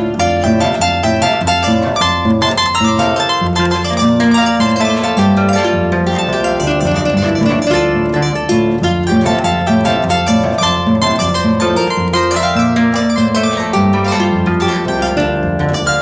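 Instrumental background music of quickly plucked string notes.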